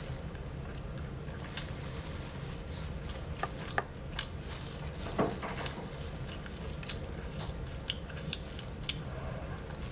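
Close-up eating sounds of a person chewing pork and potato with her mouth closed: scattered wet smacks and clicks, bunched a few seconds in and again near the end, over a steady low hum.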